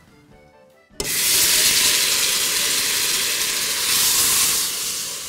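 A pot of semolina toasting in hot oil breaks into a loud, steady sizzle about a second in, as ingredients go into it.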